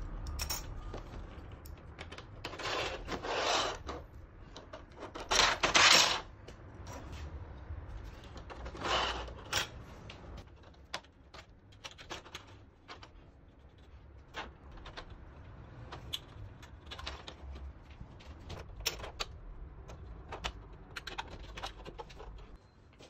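Light metallic clicks and clinks from steel strap clips being slid and snapped onto a galvanized octagonal roller-shutter tube. A few longer scraping rasps come in the first ten seconds, the loudest about six seconds in, followed by many short scattered clicks.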